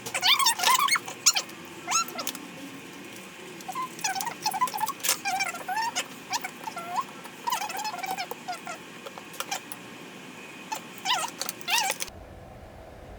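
Repeated short, high squeaks and chirps from a small animal, mixed with sharp clicks. They stop abruptly near the end, leaving only a low steady hum.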